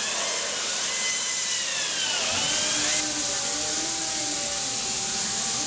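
A powered machine-shop tool running with a hissing whir. Its tones dip and rise again about two seconds in, then hold steady.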